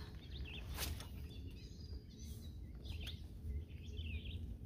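Birds chirping in short scattered calls over a steady low rumble, with one sharp click about a second in.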